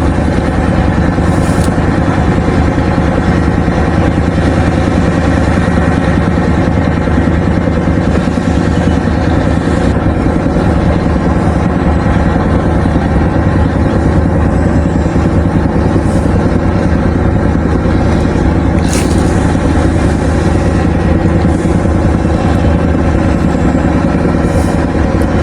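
An engine running steadily at an unchanging speed, with a few faint clicks over it.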